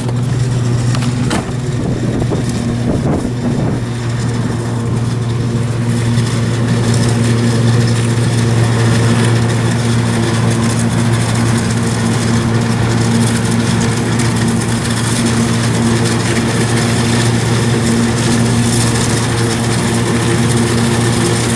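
A farm vehicle's engine running steadily at an even speed, with a few short clicks near the start.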